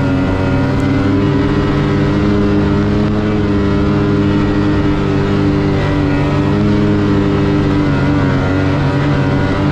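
2022 Lynx Boondocker snowmobile under way, heard from on the sled: its engine running at a nearly steady speed with an even, constant pitch.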